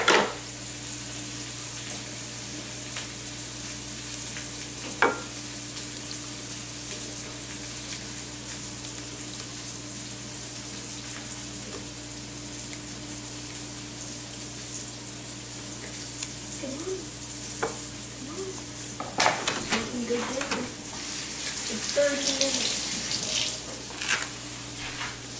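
Onion and butter sizzling steadily in a frying pan over a steady low hum, with a single click about five seconds in and a few clatters late on. Near the end the kitchen faucet runs briefly.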